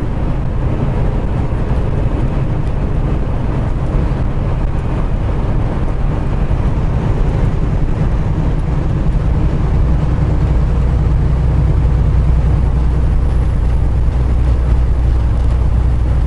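Semi truck's diesel engine and road noise heard from inside the cab while driving: a steady low drone that grows louder about ten seconds in.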